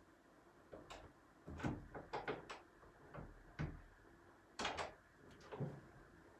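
A dozen or so sharp knocks and clunks in a small room, irregular and in short clusters, with the sound of a door or drawers being handled.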